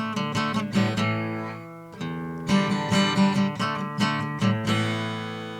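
Acoustic guitar being played, chords picked and strummed, with a short pause about two seconds in and a last chord left ringing and fading near the end. It is picked up by a Realistic 33-1062 shotgun condenser mic in its distant mode.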